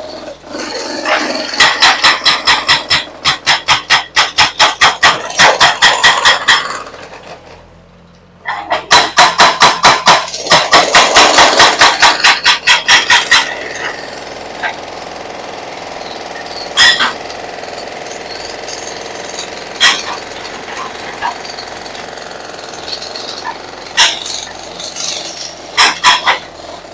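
Excavator-mounted hydraulic breaker hammering concrete in fast bursts of blows, with a brief pause about eight seconds in. From about halfway the hammering stops, leaving the excavator's engine running with a few single knocks, and a short burst of hammering comes back near the end.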